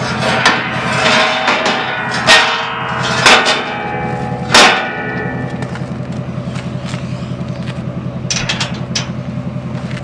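Four or five hard hammer blows on metal, each ringing briefly, in the first half, over an engine idling with a steady low pulse that goes on alone after that.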